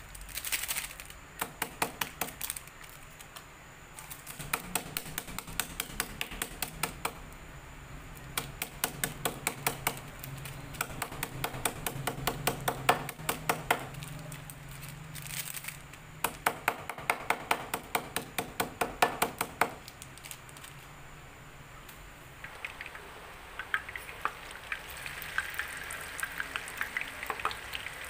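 A kitchen knife striking packets of roasted peanuts on a plastic cutting board to crush the nuts inside, in quick runs of sharp taps with short pauses between. Near the end, oil crackles and sizzles as tofu fries in a pan.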